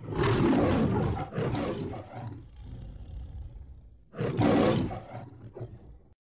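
The Metro-Goldwyn-Mayer logo lion roar: two loud roars in the first two seconds, a quieter stretch, then another loud roar about four seconds in that fades out near the end.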